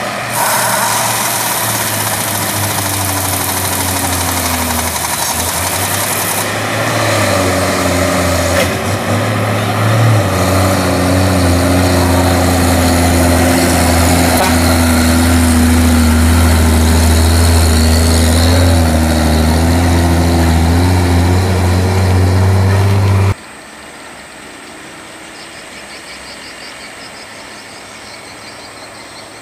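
Heavily loaded diesel log truck's engine running under load as the truck passes close, its pitch stepping up and down several times with the revs. About 23 seconds in the sound drops suddenly to a much fainter, distant engine.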